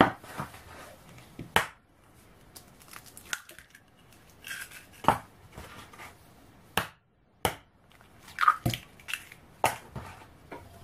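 Three hen's eggs being cracked on the rim of a plastic mixing bowl: several sharp taps, with the crackle of eggshell breaking between them.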